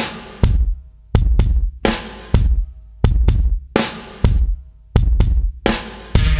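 Background music: a drum-kit beat of kick-drum and snare hits with cymbals, a hit about every three-quarters of a second.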